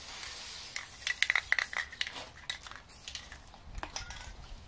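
Aerosol can of black spray paint hissing for a second or two, followed by a quick run of sharp metallic clicks and rattles, then scattered handling noises as the cardboard model is turned over.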